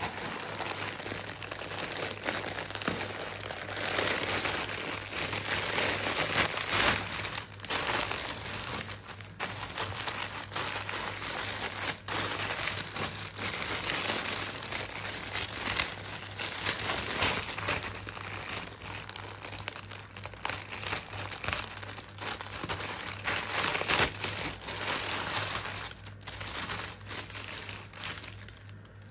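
Plastic packaging crinkling and rustling as it is handled: first a silver poly mailer bag, then a thin clear plastic bag, with irregular crackles throughout. The crinkling eases off near the end.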